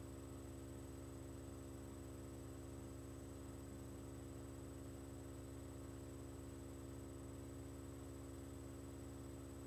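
Steady electrical hum with a faint high-pitched whine above it, unchanging throughout; no other sound stands out.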